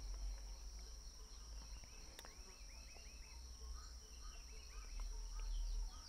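Faint background ambience: a steady high-pitched insect trill, with a quick run of short faint chirps about two seconds in and a low rumble underneath.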